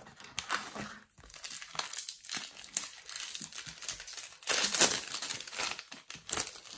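Match Attax trading-card packet wrapper being torn open and crinkled as the cards are pulled out, in irregular rustles, loudest about four and a half seconds in.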